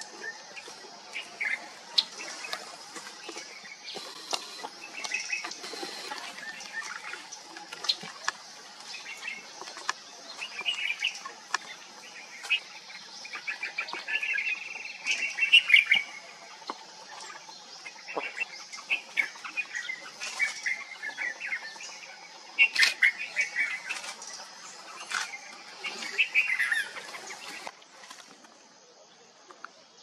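Wild songbirds chirping and calling in short, irregular bursts over a steady high-pitched drone; the drone fades near the end.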